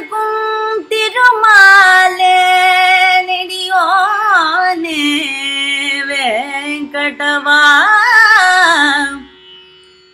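Female Carnatic vocalist singing long, heavily ornamented notes that slide and waver in pitch, over a steady drone. The voice and drone stop about nine seconds in.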